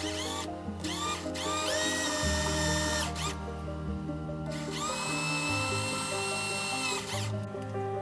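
Small electric drill with a fine twist bit boring into an epoxy resin keycap. The motor whines up to speed in a few quick bursts, then in two longer runs of a couple of seconds each, each stopping sharply.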